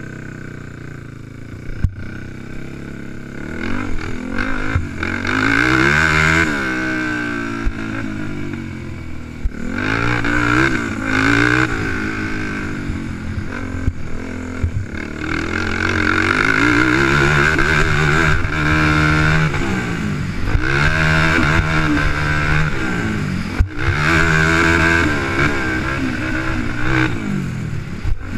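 Honda 300EX quad's single-cylinder four-stroke engine revving hard and dropping back again and again as it is ridden around a motocross track, heard close up from the rider's seat.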